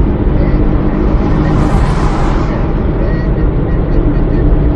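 Steady road and engine rumble heard from inside a car's cabin at highway speed. About a second and a half in, a rushing noise rises and falls away again.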